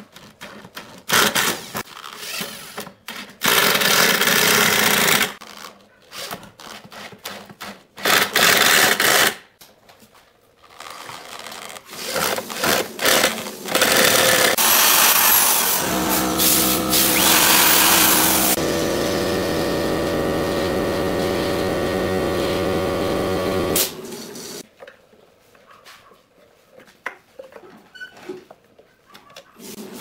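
Corded electric drill boring into the wooden roof ridge of a birdhouse. It runs in several short loud bursts, then in one steady run of about eight seconds in the second half.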